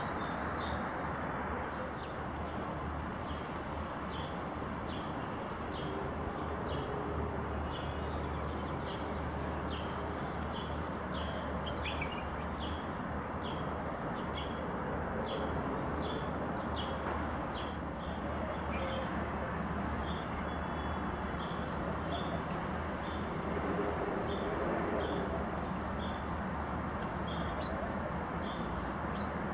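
Small birds chirping: short, high chirps repeated about once or twice a second throughout. Underneath is a steady background rumble.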